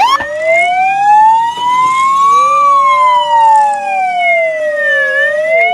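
Police siren wailing: its pitch rises slowly for about two and a half seconds, falls for about two and a half seconds, then starts rising again near the end.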